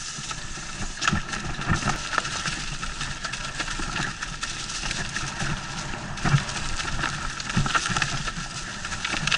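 Mountain bike descending a rough dirt trail covered in dry leaves: tyres rolling and crunching through the leaves, with the bike rattling and repeated sharp knocks and clatter over bumps.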